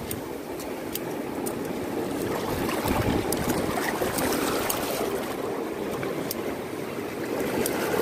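Seawater washing and splashing over shoreline rocks: a steady rushing that swells about three seconds in and again near the end, with faint sharp clicks scattered throughout.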